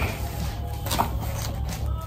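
Soft background music, with faint rustling and handling sounds as a cardboard shoebox lid is lifted and tissue paper is pulled back.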